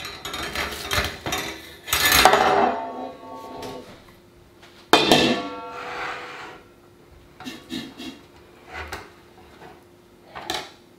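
Metal tart tin clanking and rattling against a wire cooling rack as a tart is pushed out of its fluted removable-bottom tin. There is a run of clattering knocks with metallic ringing in the first three seconds, one sharp clank about five seconds in, then lighter knocks.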